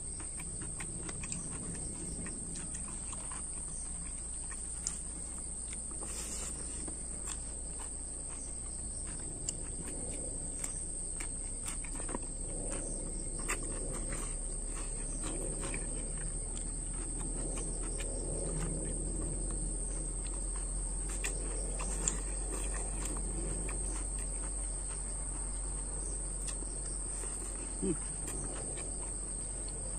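Steady high-pitched drone of insects, unbroken throughout, with scattered soft clicks and smacks of someone eating by hand close to the microphone.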